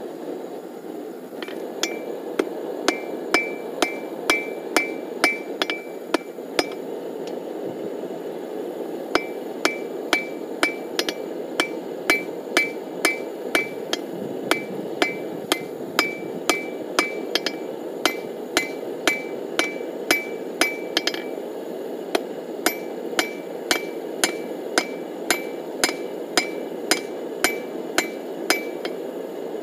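Hand hammer striking a hot steel-cable Damascus billet on an anvil while forge welding it, about two blows a second in runs with two short pauses. Each blow gives a short bright ring, over a steady rushing noise.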